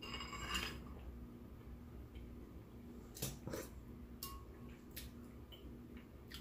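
Quiet eating at the table: a few soft, scattered clicks of a spoon and mouth over a faint steady hum.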